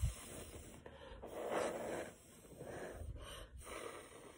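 A woman blowing hard a few times, long puffs of breath rushing over the microphone, the first with a low pop.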